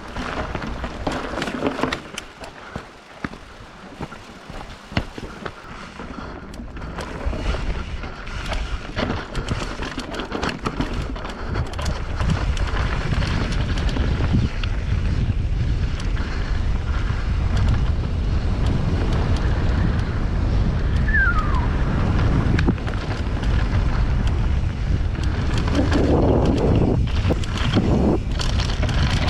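Mountain bike riding fast over a rough trail: the tyres and the frame rattle with many small knocks. Wind buffets the GoPro's microphone, growing into a steady loud rumble after the first third.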